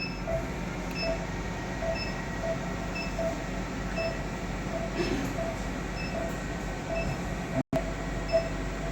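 Electronic beeping from operating-theatre equipment in two regular series: a lower beep roughly every 0.6 s and a higher beep about once a second. Under the beeps is a steady machine hum, and the sound cuts out for an instant near the end.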